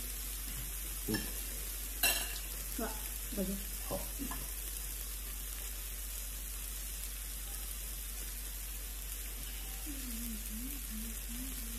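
Meat sizzling steadily on an electric hotpot-and-grill pan, with a few short clicks and clinks of utensils about one to four seconds in.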